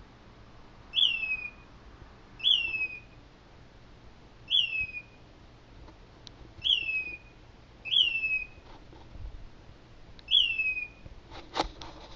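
A bird calling over and over in the night, a short, loud whistled note that rises briefly and then slides down, repeated every one to two seconds. A brief crackle comes near the end.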